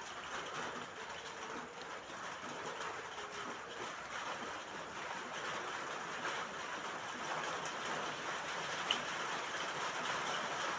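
Steady rain falling on a roof, an even hiss of many drops, with one sharper single tick about nine seconds in.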